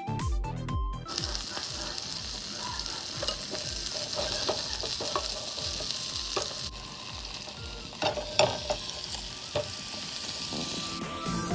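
Minced garlic, scallions, chilies and green peppercorns sizzling in hot oil in a frying pan, stirred with a wooden spatula. The sizzle is a steady hiss, broken by a few knocks and clatters, the loudest about eight seconds in.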